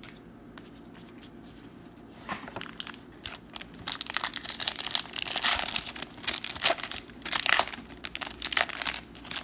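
Hands crinkling and tearing open the foil wrapper of a trading-card pack. The dense crackling rustle starts about two seconds in and continues in quick irregular bursts.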